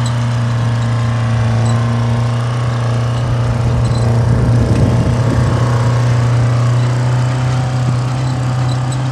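Vintage tractor engine running steadily while pulling a field implement, a deep even drone that grows a little louder about halfway through as the tractor comes closer.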